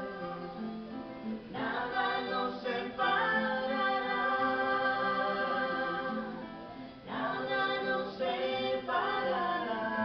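A song: voices singing held notes over a guitar accompaniment, with a short pause between phrases about seven seconds in.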